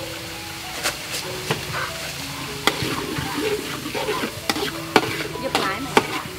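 A metal spatula stirring and scraping food in a large wok as it sizzles. Irregular sharp clinks of the spatula against the wok start about a second in.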